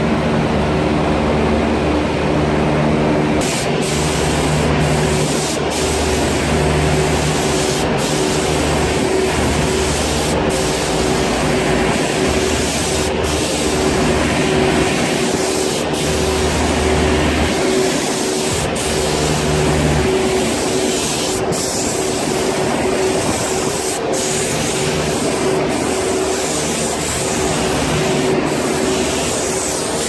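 Gravity-feed air spray gun hissing as it sprays epoxy coating onto a condenser coil. The hiss starts a few seconds in and breaks off briefly every two to three seconds between passes, over the steady hum of the condenser's running fans.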